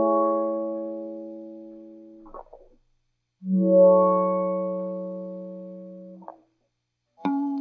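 Electric guitar through a Chase Bliss Generation Loss MKII pedal. One sharply struck chord rings and fades, ending in a brief string-muting scrape; after a short gap a second chord swells in slowly instead of being struck, the pedal's auto-swell, and dies away. New picked notes start near the end.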